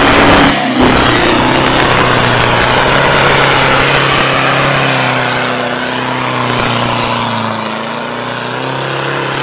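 Off-road 4x4's diesel engine running hard under load as the vehicle churns through deep mud, with mud and water splashing. The engine pitch sags a little in the second half as the vehicle bogs down.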